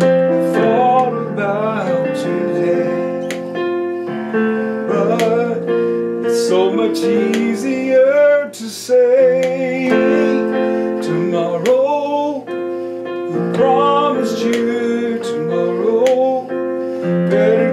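Electronic keyboard playing a slow gospel ballad, held chords throughout, with a man's voice singing along at times over it.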